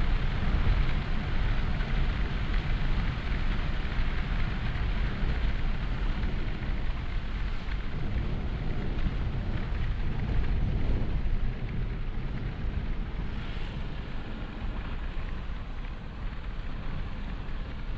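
Steady road and wind noise inside a moving car: a low rumble with a hiss above it, easing slightly in the last few seconds.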